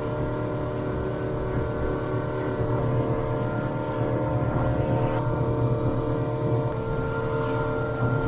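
Small boat's engine running steadily under way, a constant droning hum with steady tones and no change in speed.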